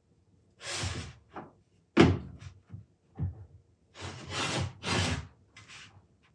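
Blocks being slid across and set down on a plywood board: several scraping slides and sharp knocks, the loudest knock about two seconds in.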